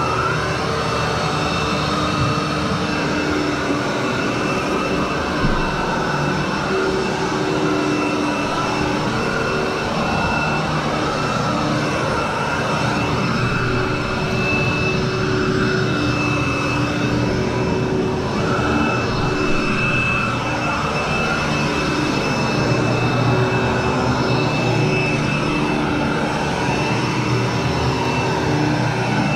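Royal commercial upright vacuum cleaner running steadily while being pushed over carpet, its motor giving a continuous drone with a steady high whine on top. It is the dry pre-vacuum pass that pulls loose soil from a heavily soiled carpet before cleaning.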